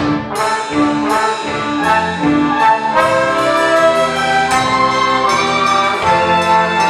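Symphony orchestra playing with the brass section leading, trombones and trumpets prominent over the ensemble. Separate accented notes come under a second apart at first, then the playing grows busier after about three seconds.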